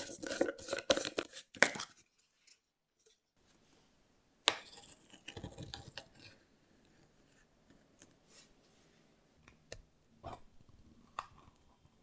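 Nutella jar being opened: a dense burst of crackling as the lid comes off and the seal is torn away in the first two seconds. Then a metal spatula scoops the thick spread from the glass jar, with a sharp click, a second of scraping, and scattered light taps.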